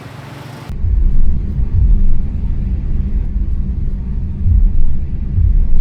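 A loud, uneven low rumble that starts about a second in and carries on, with swells in level, typical of wind buffeting a microphone or nearby traffic outdoors.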